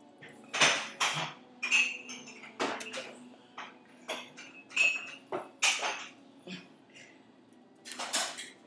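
A string of irregular light clinks and clatters of hard objects, some ringing briefly, like crockery and cutlery being handled.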